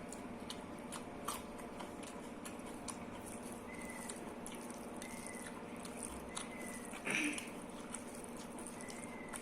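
Close-up eating sounds: chewing rice and black masoor dal, with small wet mouth clicks and one louder, brief bite about seven seconds in.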